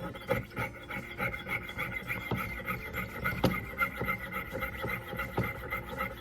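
Hand tool rasping back and forth on metal in quick, even strokes, about three a second, with a faint ringing pitch under the strokes.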